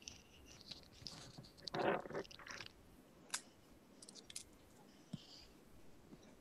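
Faint computer keyboard typing: scattered soft key clicks as a sentence is typed. About two seconds in there is a short, louder noise.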